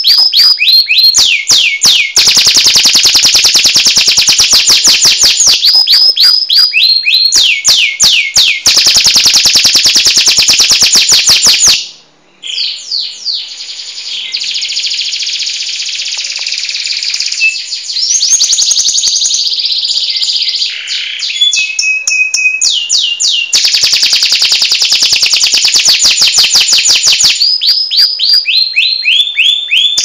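Domestic canary singing loudly: long, very fast trills alternating with runs of falling whistled notes. About twelve seconds in the song breaks off briefly and goes on in a more varied warbling passage before the fast trills return.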